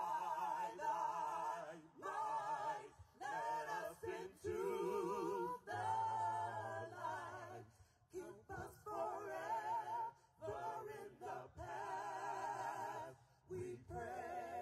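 Wordless a cappella singing: a voice holding long notes with heavy vibrato, in phrases of a second or two with short breaths between.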